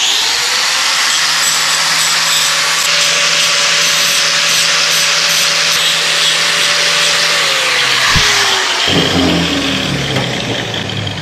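Small corded angle grinder switched on and running at a steady high whine for about seven seconds, cleaning welding slag off a steel bracket, then switched off and spinning down over about a second. Light clatter of handling follows near the end.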